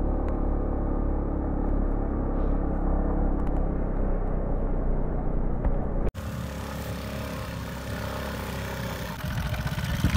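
Aprilia scooter's single-cylinder engine running steadily under way on a rough dirt track. It cuts off abruptly about six seconds in, replaced by a quieter engine sound with more hiss.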